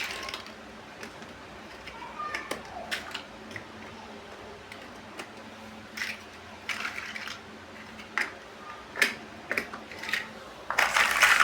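Toy building bricks being handled and pressed together: irregular light plastic clicks, with a denser burst of clattering near the end.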